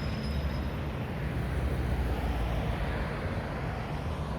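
Diesel engine of a Mack McNeilus front-loader garbage truck running, a steady low rumble that swells slightly midway.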